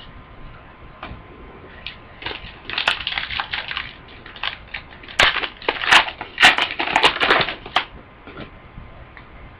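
Plastic foil trading-card pack wrapper being torn open and crinkled by hand, in two bouts of crackling with sharp snaps, the second longer and louder.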